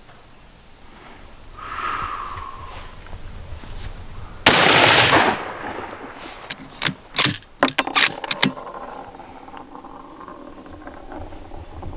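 A single shot from a Savage 110 Tactical bolt-action rifle in .308 about four and a half seconds in, very loud and echoing for about a second. A few seconds later comes a quick run of about eight sharp metallic clicks, the bolt being worked to eject the case and chamber the next round.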